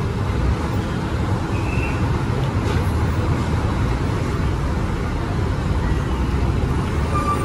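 Steady low rumble of city buses and road traffic.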